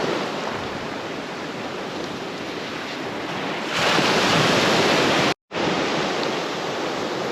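Surf washing on the shore with wind on the microphone, a steady rush that swells louder about four seconds in. A little later the sound cuts out completely for a split second, then resumes.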